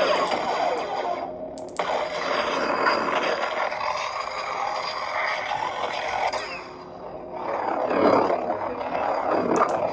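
Lightsaber sound board playing its sound font through a small speaker: a steady hum with swells from swings, and a sharp crack about two seconds in.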